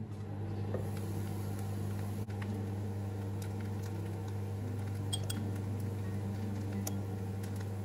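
Steady low electrical hum of a kitchen appliance, with a few faint clicks of a metal spoon over a nonstick pan.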